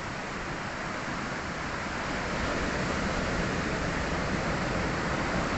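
Sea surf washing on the shore, a steady rush that swells a little louder about two seconds in.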